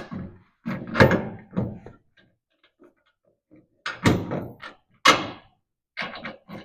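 Clunks and knocks of heavy metal parts being handled and set down while a T-bucket's front leaf spring is fitted onto the axle's front perch. They come in several separate groups with short quiet gaps between.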